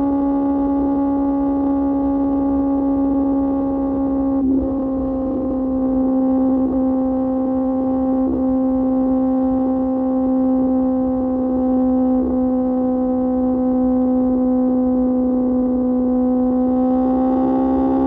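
QJ Motor SRK600's inline-four engine through an SC-Project exhaust, running at a steady cruise: one steady drone whose pitch sags a little and then rises again near the end.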